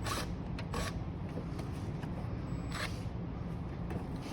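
Three brief scraping rustles of a plastic interior trim clip in a car's roof being worked at by hand, over a steady low hum.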